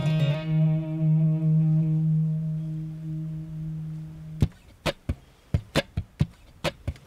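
Maton acoustic guitar: a low chord rings and slowly fades for about four seconds. Then comes a run of about ten sharp percussive taps, played on the guitar, in under three seconds.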